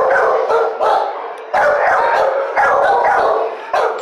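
Many dogs barking at once in an animal shelter's kennel block: loud, overlapping barks coming every half second or so with hardly a pause.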